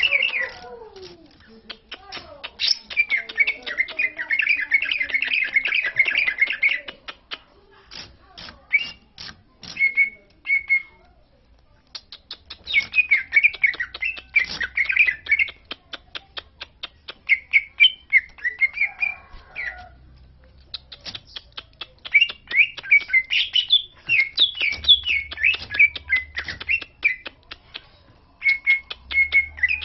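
Green leafbird (cucak ijo) singing: bursts of rapid, varied chattering and warbling phrases lasting a few seconds each, with short pauses between them.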